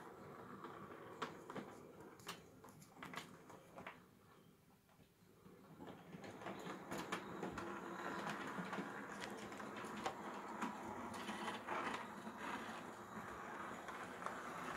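Brass 7mm-scale model Duchess steam locomotive running on the layout track, its electric motor and gears whirring with irregular clicking. The sound drops away about four seconds in, then returns louder and steadier from about six seconds on.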